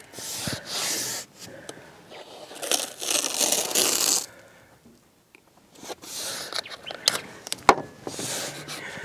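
Masking tape being pulled off the roll and rubbed down along the bottom edge of a painting board, in four scraping spells of about a second each, with a sharp tick near the end.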